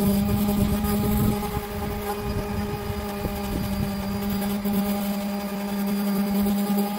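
Power sander running with a steady hum while sanding the car's sheet-metal body panel toward bare metal.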